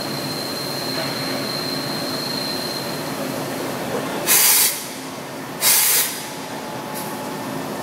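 Mori Seiki MV-45 vertical machining center running with a steady high whine over machine hum. The whine fades after about three seconds. About four seconds in come two loud hisses of compressed air a little over a second apart, the air blasts of the spindle unclamping and clamping during a tool change.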